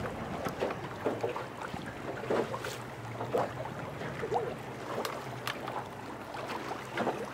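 A boat's motor running steadily, with water splashing against the hull at irregular moments.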